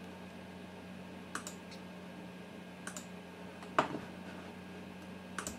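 A computer mouse button clicking a few separate times while package checkboxes are ticked off in an installer; the loudest click comes just before four seconds in. A steady low hum runs underneath.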